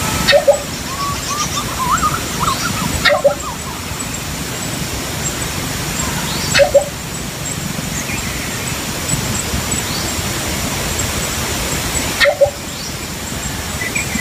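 Philippine coucal giving four short, low calls spaced a few seconds apart, over a steady outdoor hiss. Thin higher chirps come in the first three seconds.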